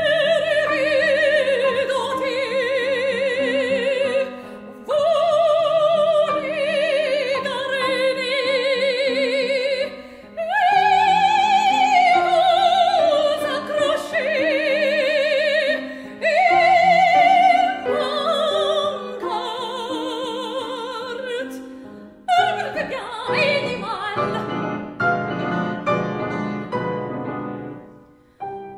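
Operatic soprano singing with wide vibrato over piano accompaniment, in long phrases of held high notes with short breaks between them. Toward the end the texture becomes busier, with more separate note onsets.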